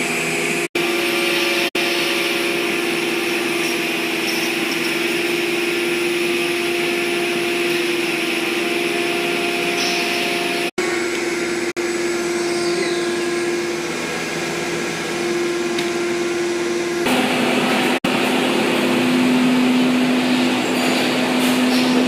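Woodworking CNC router machinery running: a steady machine hum and whine with a held tone. It breaks off for an instant several times, and about 17 seconds in it shifts to a slightly louder sound with a lower tone.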